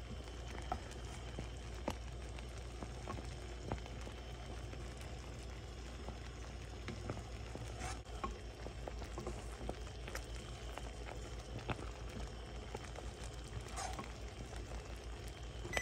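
Thick strawberry-cranberry jam at a full rolling boil in a stockpot: a steady bubbling with scattered small pops, while a wooden spoon stirs through it.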